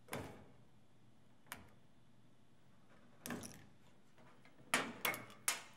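About six separate light clicks and taps of a small hand tool and fingers against the metal chassis and plastic parts of an 8-track player's tape transport, as a small part is prised off. The sharpest clicks come close together near the end.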